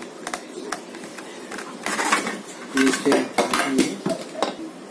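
Metal parts of a meat grinder clinking and knocking as they are handled and lifted out of a cardboard box, among them the metal feed tray.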